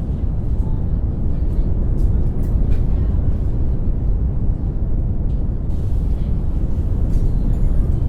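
Synthesized brown noise: a steady, deep, even rumble of noise, heaviest in the bass and thinning toward the top, with a few faint ticks over it about two to three seconds in.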